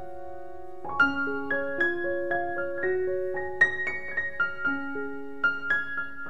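Background music: a slow piano melody of single struck notes, each left to ring.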